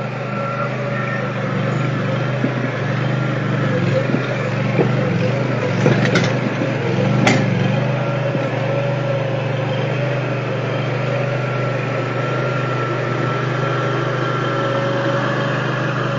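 Engine of a compact skid steer loader running steadily as it drives on a lawn, with a steady whine above the engine note and a couple of sharp knocks around the middle.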